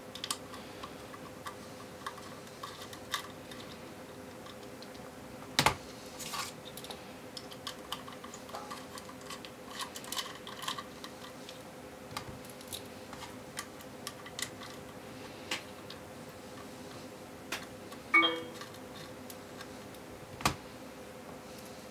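Faint, scattered clicks and ticks of a small Phillips screwdriver undoing the edge screws of a 2.5-inch hard drive's metal caddy, with a few louder taps as parts and tiny screws are handled and set down. A faint steady hum runs underneath.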